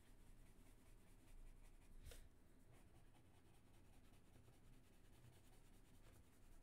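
Very faint scratching of a colouring tool shading across paper, with one short click about two seconds in.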